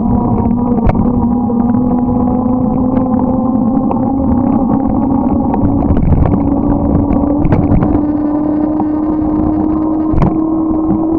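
Motorcycle engine running steadily under way, its pitch rising slowly, over a low rushing rumble with scattered clicks.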